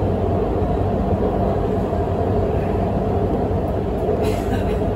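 Guangzhou Metro Line 7 train running through the tunnel, heard from inside the car as a steady low rumble and hum. A brief hissing rattle comes about four seconds in.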